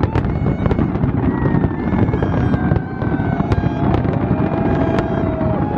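Fireworks going off in rapid succession: many sharp pops over a heavy, continuous rumble, with a few long tones that sink slowly in pitch over it.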